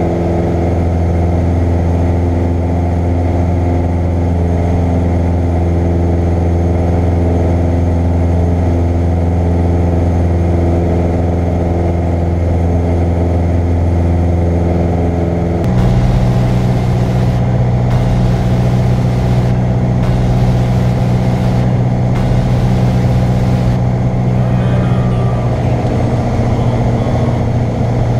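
Single-engine light aircraft's piston engine and propeller droning steadily, heard from inside the cockpit. About halfway through, the drone shifts suddenly to a slightly higher pitch with more rushing noise.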